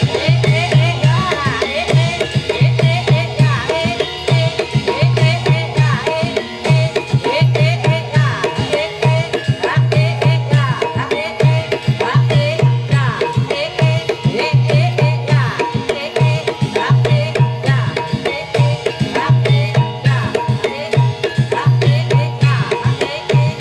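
Live Javanese gamelan music driven by kendang hand drums, the accompaniment for a jaranan (kuda lumping) horse dance. A steady repeating low drum beat runs under a wavering melody line.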